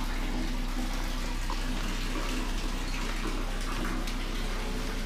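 Water running steadily, sounding like a waterfall, over a steady low hum.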